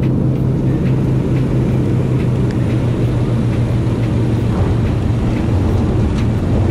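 Propeller plane's engine drone heard from inside the cabin during landing: a loud, steady low hum with rushing noise, dropping a little in pitch about two-thirds of the way in as the plane touches down and slows.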